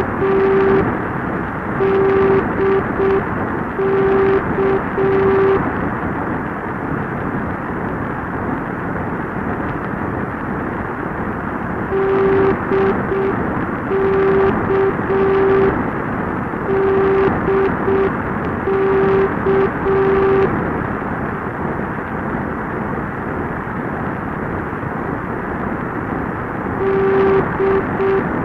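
NDB radio beacon 'DK' on 1020 kHz received on an AM receiver: its Morse identifier, dash-dot-dot then dash-dot-dash, is keyed as a steady beeping tone over constant static hiss. The ident comes once near the start, twice in a row in the middle and begins again near the end, with pauses of hiss between.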